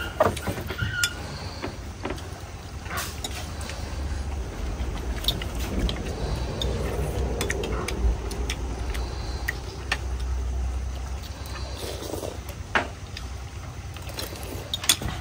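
Eating at the table: spoons and chopsticks clicking now and then against ceramic bowls while noodle soup is eaten. Under it is a steady low rumble that swells through the middle and then fades.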